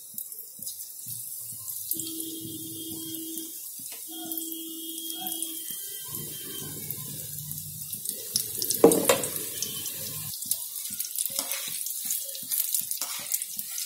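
Besan-battered green chillies deep-frying in hot oil in an aluminium kadai: a steady sizzling hiss, with a sharp knock about nine seconds in.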